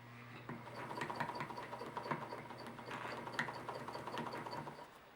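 Vintage electric sewing machine stitching slowly through denim: a steady motor hum with the needle mechanism ticking rapidly and evenly, about five ticks a second, stopping near the end.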